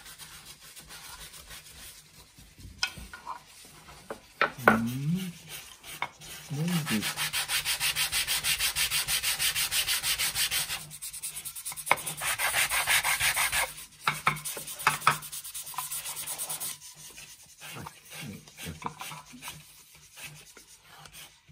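Hand-sanding a small wooden card-case part: the piece is rubbed back and forth on a sheet of sandpaper laid flat on the table, in fast, even strokes of about five a second for some ten seconds. Quieter scraping and handling of the wood come before and after. This is the final fitting adjustment of the card case.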